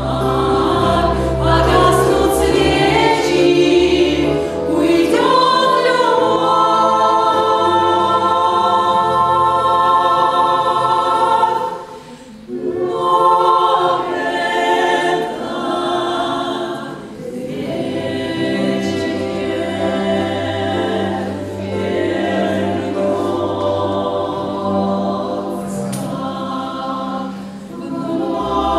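Three women's voices singing a song in close harmony, with an electronic keyboard holding low accompanying notes. The music thins out briefly about twelve seconds in.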